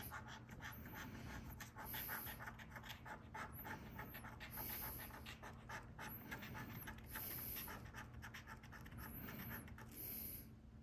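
A coin scratching the coating off a scratch-off lottery ticket: quick, faint rasping strokes, over and over.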